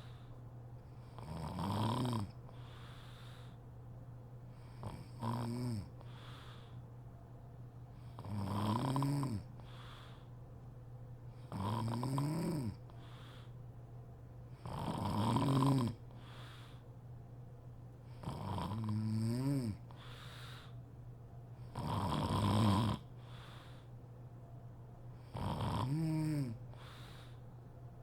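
A sleeping woman snoring in a steady rhythm, about one snore every three and a half seconds. Each snore is a droning tone lasting about a second that rises and then falls in pitch.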